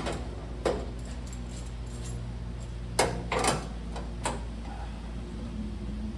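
Several short metallic clanks and knocks from parts being handled, the loudest about three seconds in, over a steady low hum.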